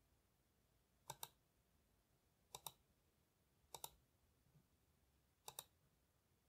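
Computer mouse button clicking faintly in quick pairs, four times, each pair two sharp clicks about a tenth of a second apart.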